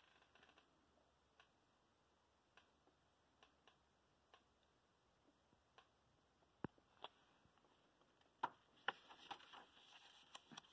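Near silence broken by faint, irregular clicks from a paperback picture book being held and handled. About two-thirds of the way in, the clicks grow louder and closer together with a light paper rustle as its pages are turned.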